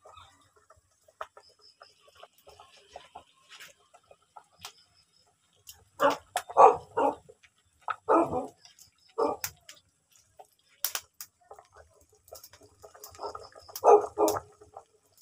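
A dog barking in short bursts: a few barks about six seconds in, more around eight and nine seconds, and another cluster near the end, with a couple of sharp clicks in between.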